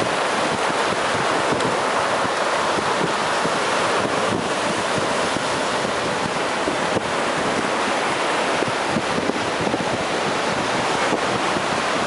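Ocean surf breaking and washing up the beach, a steady rushing hiss, with wind buffeting the microphone.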